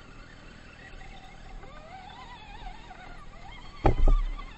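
Electric motor and gear whine of radio-controlled scale crawlers ploughing through snow, wavering and rising in pitch as the throttle changes. A sharp thump about four seconds in, the loudest sound here.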